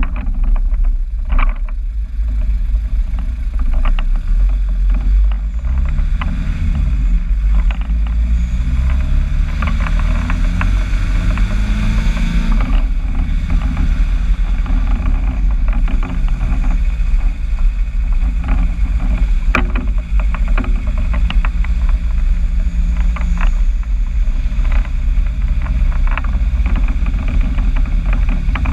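Engine running through a new exhaust; its pitch climbs steadily for several seconds, then drops back and holds steady.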